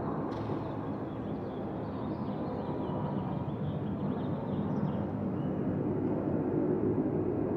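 Jet airliner passing overhead: a steady rumble of its jet engines, growing slightly louder toward the end.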